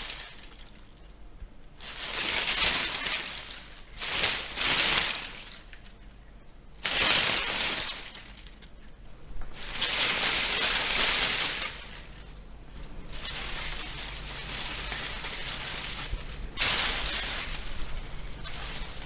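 Leaves and twigs of a bush rustling as the plant is wiggled. The rustling comes in repeated crisp bursts a second or two long with short pauses between them, then runs on more steadily and softly near the end.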